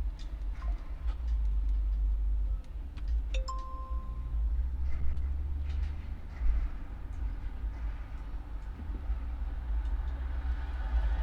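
A short electronic beep of about a second, a little over three seconds in, over a steady low rumble and scattered light clicks.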